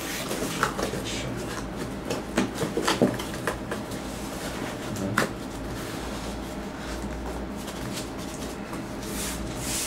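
Cardboard rifle box being closed and handled on a desk: scattered knocks and rustles of the cardboard lid and flaps, then a longer scrape near the end as the box slides across the tabletop.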